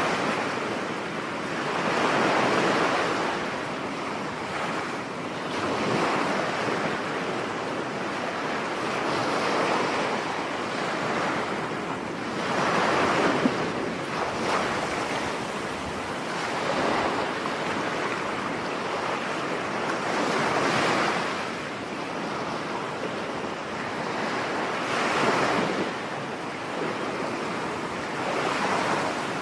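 Ocean surf: waves breaking and washing in, the sound swelling and falling back every few seconds.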